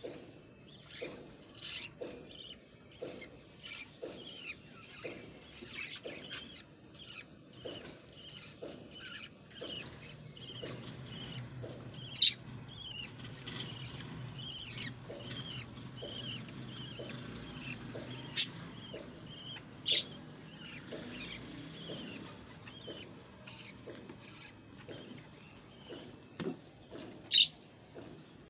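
Budgerigar chicks cheeping: many short, thin squeaky calls in quick succession. A few sharp taps or knocks stand out above them, scattered through.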